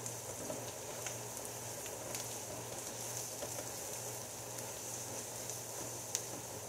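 Sliced onions and garlic-ginger paste sizzling in oil in a nonstick frying pan, stirred now and then with a silicone spatula, with a few faint clicks. The aromatics are frying until the garlic turns fragrant. A steady low hum from the range hood fan runs underneath.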